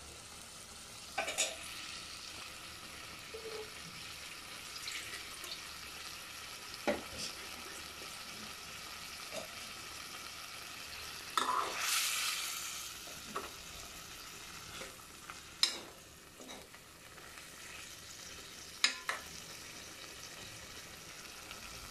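A small-fish and potato curry sizzling in a metal pot on the stove while a spoon stirs it, clicking against the pot now and then. A louder stretch of sizzling comes a little past halfway.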